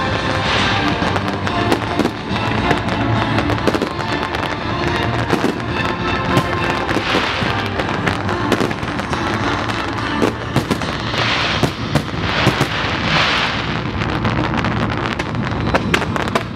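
Fireworks display going off: rapid bangs and crackling of aerial shells and ground fountains, with hissing surges now and then. Rock music for the display plays under the bangs throughout.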